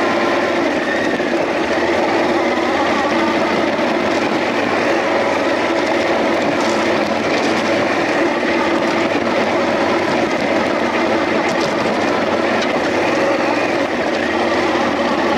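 Off-road motorcycle engine running steadily while riding, with no pause in its sound.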